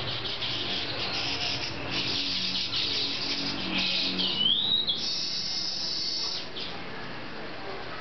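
Male baya weaver singing at its nest: a run of rapid, high chattering, then a rising whistle about four seconds in, which leads into a buzzy wheeze that stops about six and a half seconds in.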